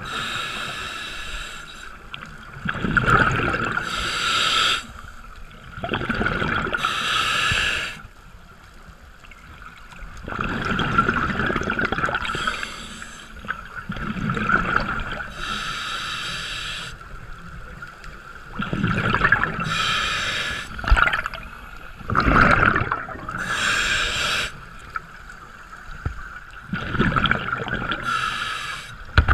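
A scuba diver breathing through a regulator underwater: a short hissing inhale, then a gurgling rush of exhaled bubbles, repeating about every four seconds.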